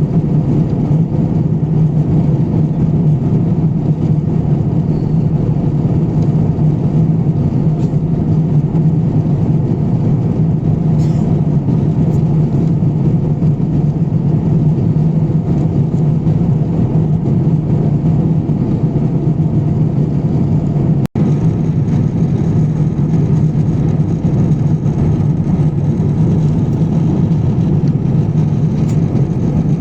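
Steady cabin noise of an Airbus A350-1000 in cruise, heard inside the cabin at a window seat: a constant low hum from the Rolls-Royce Trent XWB engines and the rush of air over the fuselage. The sound cuts out for an instant about two-thirds of the way through.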